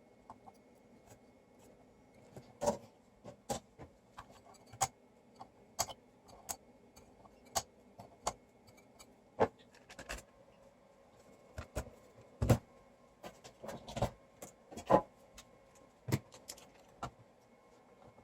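Irregular sharp clicks and taps of tools and parts being handled during electronics repair work, a couple of them louder knocks, over a faint steady hum.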